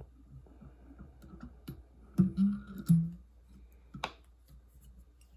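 Light clicks and taps of a whip finish tool and tying thread as the thread is whip-finished behind the hook eye. A little past the middle come two short low-pitched hums, the loudest sounds, and a sharp click follows about four seconds in.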